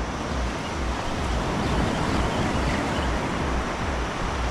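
Surf washing up the beach in a steady hiss, with wind buffeting the microphone in low rumbles.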